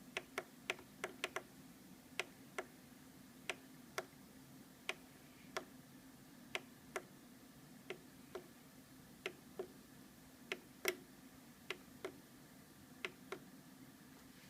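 About two dozen short, sharp clicks at uneven intervals, like buttons or keys being pressed, over a faint steady hum.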